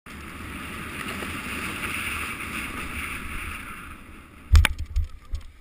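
Wind rushing over a parachutist's camera microphone during the canopy's final approach, then a few heavy thumps and knocks about four and a half seconds in as the jumper touches down on the grass.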